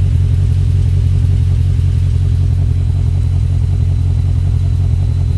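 Exhaust of a V-engine running steadily with a cylinder 3 misfire; the top-end tick is masked by the exhaust. The owner suspects a bent valve.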